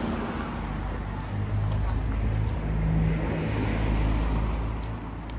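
Steady low rumble of street traffic, swelling in the middle and easing near the end, with wind buffeting the microphone.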